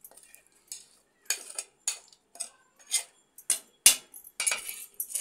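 A metal spoon scraping and clinking against an iron griddle and a stainless-steel mixer-grinder jar as roasted tomatoes are pushed into the jar: a series of sharp scrapes and clinks, the loudest a little before four seconds in.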